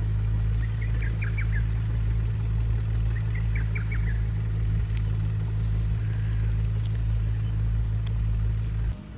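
A steady low mechanical hum with several fixed low tones, stopping abruptly near the end. Over it a bird gives a short run of quick high notes twice.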